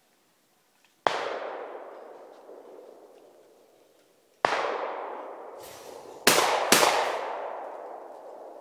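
Four shotgun shots at clay targets: one about a second in, one past the middle, then two in quick succession about half a second apart. Each is followed by a long echo that dies away over a few seconds.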